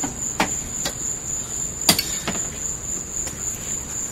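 Axe blows striking a Ford Thunderbird's sheet-metal body: four sharp hits, the loudest about two seconds in.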